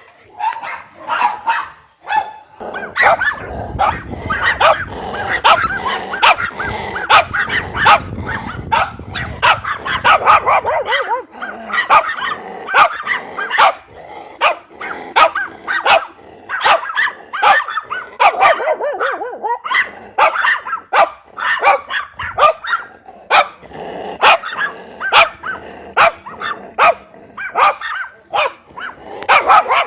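A group of dogs barking rapidly and over one another, with some growling and yips mixed in. A low rumble runs underneath for several seconds early on.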